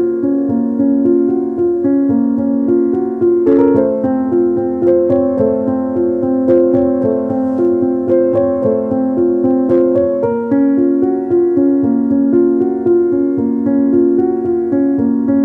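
Background music: a soft piano melody played over steadily repeating notes.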